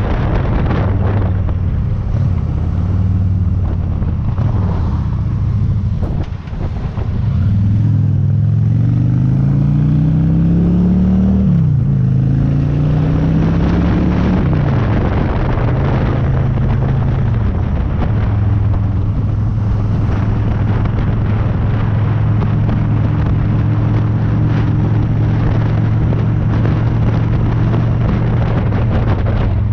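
Honda Shadow cruiser's V-twin engine under way. It drops off briefly about six seconds in, rises in pitch as it accelerates, drops sharply at an upshift, rises again, then settles to a steady cruise with wind noise.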